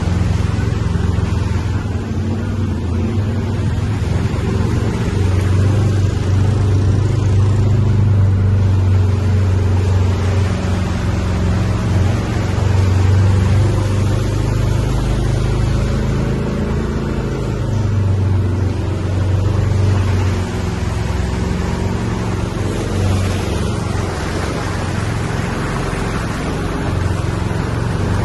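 A vehicle's engine running steadily while driving, with a constant low hum and road noise that rises and eases a little as it goes.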